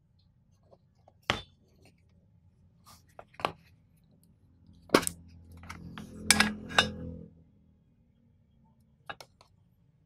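Thin metal Zippo gift tin being handled and opened: scattered sharp taps and clicks, then about five seconds in a cluster of metallic clinks with a brief ringing as the lid comes off and is set down. Two light ticks follow near the end.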